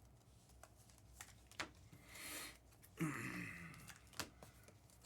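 Faint handling of trading cards and foil packs at a table: scattered light clicks and taps, a short rustle about two seconds in, and a louder rustle about three seconds in.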